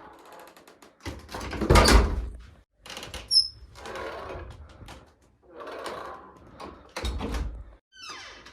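A door swinging under its overhead door closer. There is a long, loud swish about a second in, a click with a brief high squeak a little later, and a sudden thud just after seven seconds as a door shuts.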